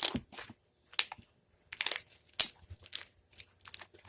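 Homemade glue slime being squeezed and worked in the hands, giving an irregular string of crackles and pops.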